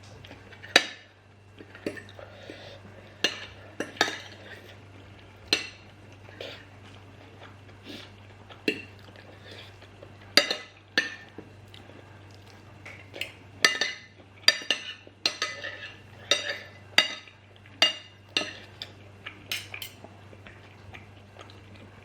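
Cutlery clinking and scraping against a plate of curry and rice as food is scooped up: irregular sharp clinks, roughly one to two a second, over a steady low hum.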